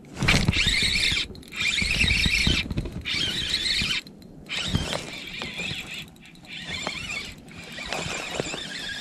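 Fishing reel whirring and squealing in bursts about a second long with short pauses between, as line is reeled in against a hooked fish.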